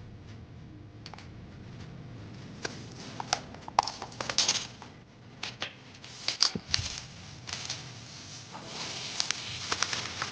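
Hands handling camera-lens packaging during an unboxing: a string of irregular clicks, taps and short rustles, the loudest about four and six and a half seconds in, over a faint low hum.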